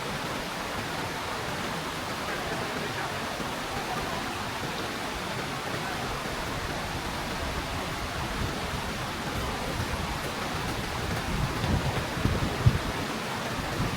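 Waterfall rushing steadily, a constant roar of falling water. A few low bumps come in near the end.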